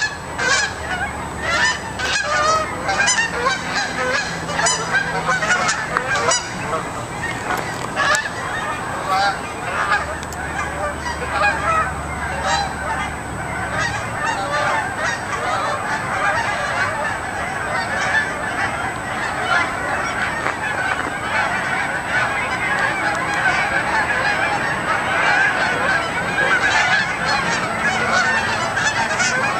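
A large flock of geese flying overhead, honking constantly: many overlapping calls that form a continuous chorus.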